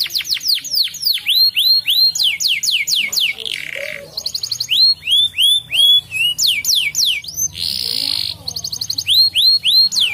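Crested domestic canary singing a long song of repeated phrases: rapid runs of falling whistled notes and fast high trills, broken by two short harsh buzzing notes, about four seconds in and near eight seconds.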